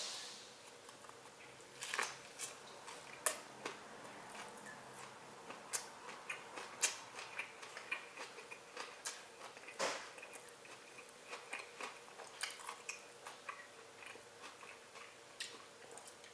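A person biting into and chewing a sub sandwich, close by: irregular small crunching clicks and crackles from the bread and fillings.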